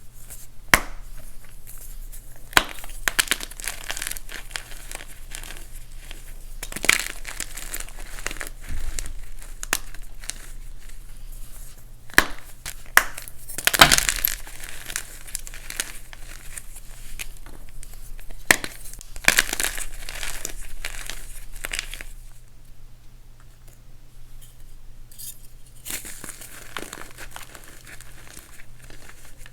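Blocks of dyed, reformed gym chalk being crushed: gritty crunching and crumbling with sharp cracks now and then. The crunching is strongest in the first two-thirds, then turns softer and quieter near the end.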